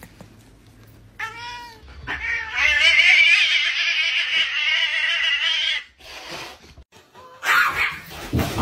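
A cat gives a short meow, then one long, wavering yowl lasting about four seconds: an angry, defensive cat warning off a dog. A burst of scuffling noise follows near the end.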